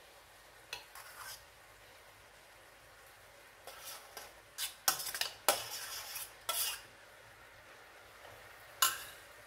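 Metal fork scraping and clinking against a stainless steel pot as cooked rice is scraped out of it into a frying pan. There are a couple of light clicks in the first second and a half, a run of louder scrapes and knocks from about four to seven seconds in, and one more clink near the end.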